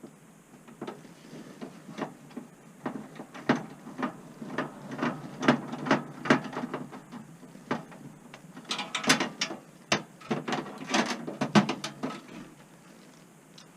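Irregular clicking and ticking of a screwdriver working a stiff screw in to mount a furnace's replacement igniter. The clicks come in quicker, louder runs about two-thirds of the way in.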